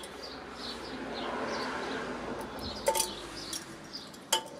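Metal eye-shield bracket being handled and fitted onto a bench grinder's wheel guard: soft handling rustle, then two short metallic clinks, about three seconds in and near the end. Faint bird chirps in the background.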